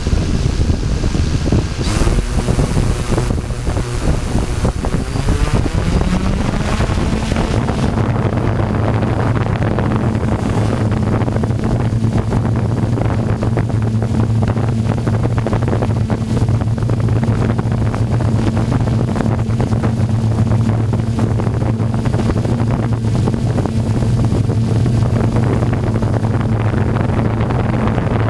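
DJI F550 hexacopter's motors and propellers, heard from its onboard camera, spinning up for takeoff. The hum rises in pitch over the first few seconds, then holds steady as the craft climbs, with wind rushing over the microphone.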